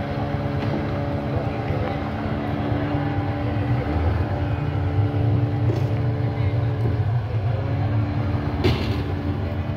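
Outboard motor of a long wooden river canoe running steadily: an even engine drone over a low rumble. One sharp click comes near the end.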